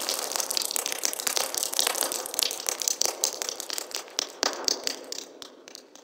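Water dripping fast from a leak, many drops a second splashing in a dense run, thinning out and fading away near the end.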